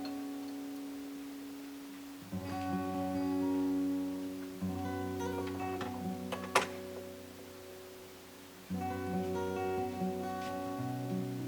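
Background music: acoustic guitar playing slow, held chords that change every few seconds. A single sharp click sounds about two-thirds of the way through.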